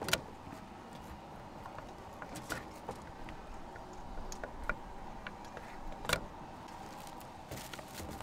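Scattered sharp clicks and taps of utensils at a braised-snack stall, the loudest just after the start and about six seconds in, over a steady market hum.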